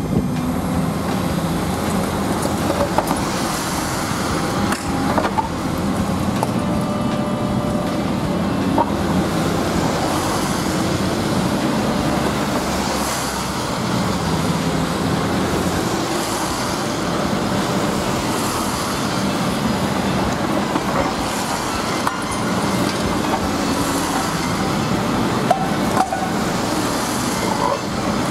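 Long-reach demolition excavator running steadily, its engine and hydraulics working the demolition jaws on a building wall, with a few scattered small knocks and cracks.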